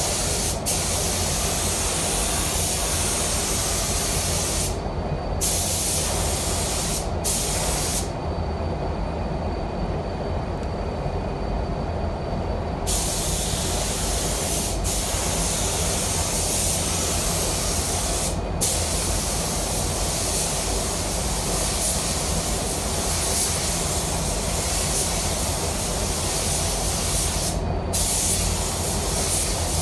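Compressed-air paint spray gun hissing in long passes as tinted sealer is sprayed onto a plastic bumper. The spray cuts off briefly several times between passes, with a longer pause of about five seconds near the end of the first third.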